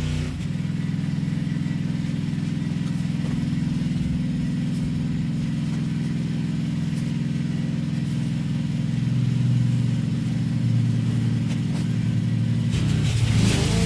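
Petrol lawn mower engine running at a steady speed, cutting off or changing near the end.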